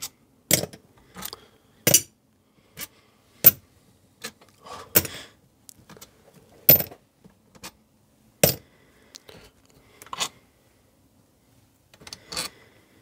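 Sharp metallic clinks, a dozen or more at uneven intervals, as steel bolts are drawn out of the camshaft carrier of a Rover 1.8 K-series cylinder head and handled and set down among other loose bolts.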